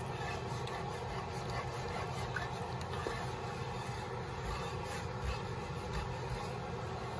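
Pork chops simmering in thin pan gravy in a skillet: a steady bubbling hiss over a low hum.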